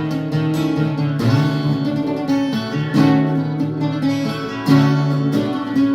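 Acoustic guitar strumming chords, changing chord every second or so, in an instrumental passage of a song.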